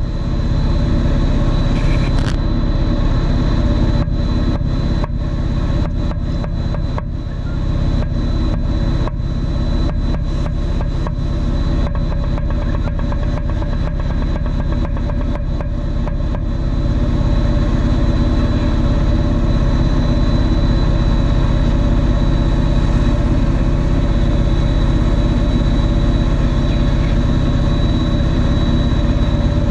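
Motors and propellers of a 250-size quadcopter buzzing steadily, heard through the onboard camera, with several held tones from low to high. Frequent short crackles through roughly the first half, smoother afterwards.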